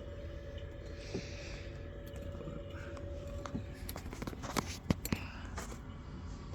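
Hive frames and equipment being handled during a dead colony's inspection: a brief scrape about a second in, then several sharp clicks and knocks from about four seconds on, over a steady low hum.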